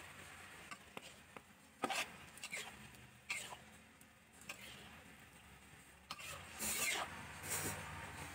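Metal spatula scraping across a wok and turning stir-fried food, in short separate strokes and then a longer, louder run of scraping near the end.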